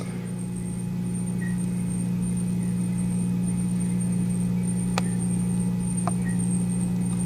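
A steady low hum, with a couple of faint clicks late on.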